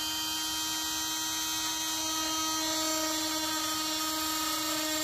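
Oscillating multi-tool running at a steady high whine, its blade cutting into a plastic console panel.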